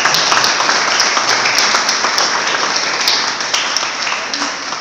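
Audience applauding with steady, dense clapping that slowly dies away near the end.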